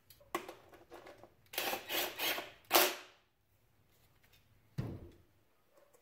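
Hand ratchet doing up the ignition coil bolts on the engine: a few short bursts of ratchet clicking in the first three seconds, then a single dull thump near the end.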